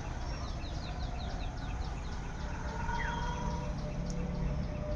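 Birds chirping: a quick run of short, high chirps at about four or five a second, with a falling whistle about three seconds in, over a steady low rumble.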